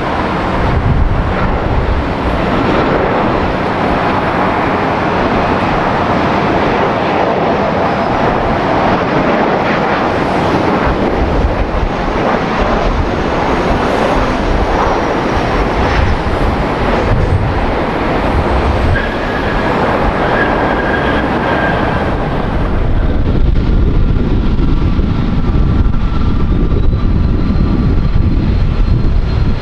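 Airliner engines running loud at close range: a continuous broad noise, with steady whining tones emerging about two-thirds of the way in and a deeper rumble growing louder near the end.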